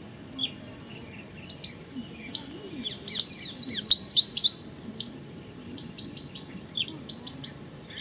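White-throated kingfisher calling: a loud, fast run of about nine short, high, sharp notes lasting about a second and a half, starting about three seconds in, with scattered fainter single chirps around it.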